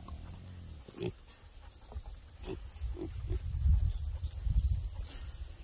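Pigs grunting: a few short grunts about a second in and again between two and a half and three and a half seconds in, with a low rumbling noise through the second half.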